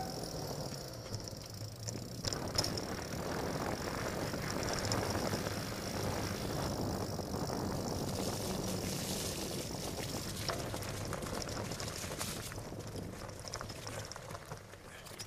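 Fat bike rolling along a wet dirt and leaf-covered trail: a steady rumble from the wide knobby tyres with rattles from the bike. There are a few sharp knocks in the first few seconds, and the rumble fades slightly near the end.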